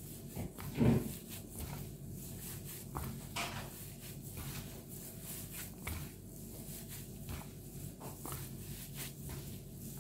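Gloved hands kneading and pressing mashed potato on a stainless steel tray: irregular soft squishes, plastic-glove rustles and small taps, with one louder low thump about a second in.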